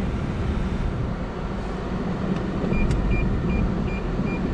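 Steady rush of a 2019 Lexus ES350's air-conditioning fan inside the cabin of the running car. About two and a half seconds in, after a click, the parking-sensor warning starts beeping at one pitch about two and a half times a second, the sign that the sensors detect an object close by.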